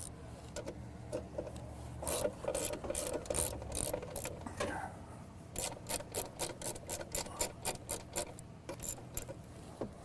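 Ratchet wrench clicking as it loosens the bolts clamping an old streetlight fixture to its pole arm. Scattered clicks at first, then a quick steady run of about five clicks a second from a little past halfway until near the end.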